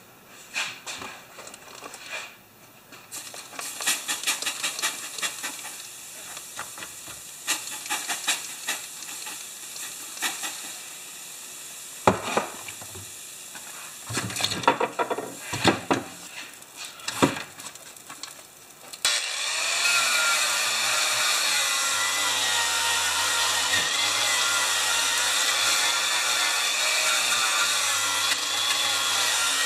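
Scattered knocks and scrapes of handling at first. About two-thirds of the way through, an angle grinder fitted with a wire cup brush starts and runs steadily against the freshly welded metal bracket, scrubbing the weld clean.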